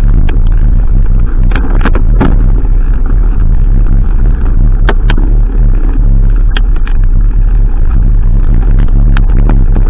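Heavy wind buffeting on an action camera's microphone as a mountain bike rolls down a gravel track, a constant low rumble, with sharp knocks and clicks now and then as the bike and camera mount jolt over stones.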